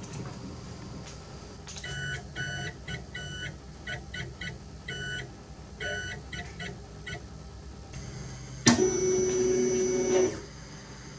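3D printer's stepper motors whining in short pitched bursts as the print head moves, then a sudden louder steady whine lasting about a second and a half near the end.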